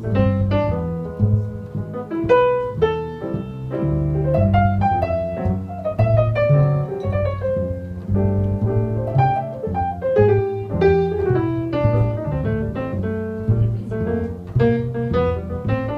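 Grand piano and plucked upright double bass playing an instrumental passage together.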